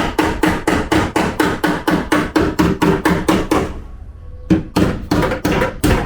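Panel-beating hammer striking a dented steel body panel of a Toyota Sienta in quick, even blows, about six a second, each with a metallic ring as the panel is worked back into shape. The blows stop briefly about four seconds in, then carry on.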